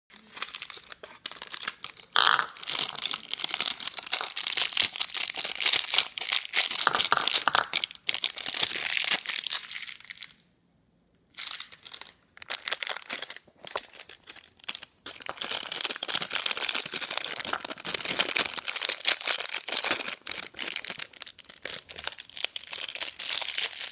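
Plastic fruit-snack pouches crinkling and rustling as they are handled and emptied into a bowl, with a couple of short pauses near the middle.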